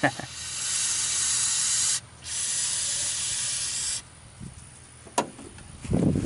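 Aerosol starter fluid sprayed into a carburetor throat in two hissing bursts of about two seconds each, priming a long-stored engine before cranking. A sharp click and then a dull thump follow near the end.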